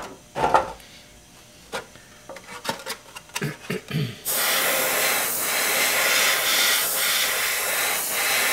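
Light clicks and rubbing of handling, then, a little past halfway, an airbrush starts with a sudden, steady hiss of air and paint spraying, wavering slightly as the spray passes over the surface.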